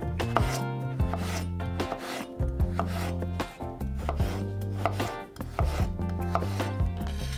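Chef's knife cutting through peeled raw potatoes and striking a bamboo cutting board, a run of cuts coming a few times a second.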